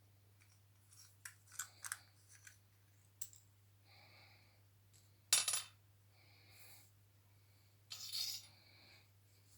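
Metal flashlight parts clicking and scraping as the head is unscrewed and handled to get at the T6 LED. There is a series of light clicks, one louder knock about five seconds in, and a longer scrape near the end.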